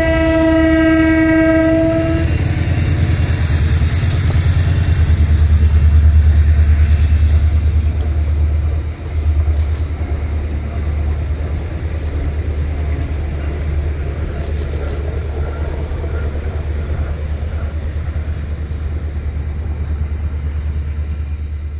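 A diesel locomotive's horn sounds one steady two-note-free blast of about two seconds, then the train passes with a loud, deep rumble of engine and rolling flat wagons, with faint clicks of wheels over the rail joints partway through.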